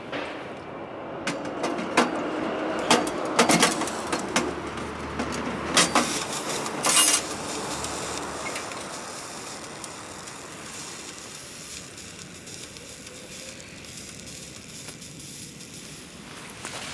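Wood fire burning in a stainless steel Winnerwell Nomad View tent stove, with a run of sharp cracks and pops over the first seven seconds, the loudest near the end of that run, then a steadier, quieter burn.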